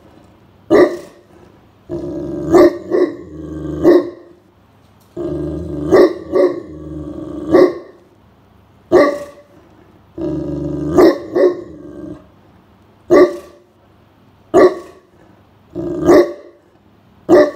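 Great Pyrenees giving deep alert barks at someone approaching the house, one bark every second or so, about fifteen in all, with stretches of low growling between barks in three places.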